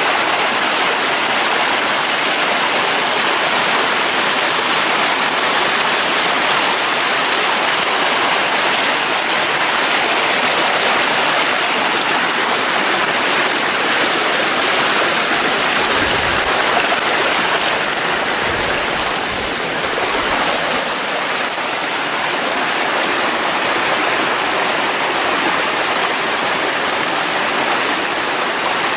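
Small waterfall pouring and splashing with a steady, even rush of water.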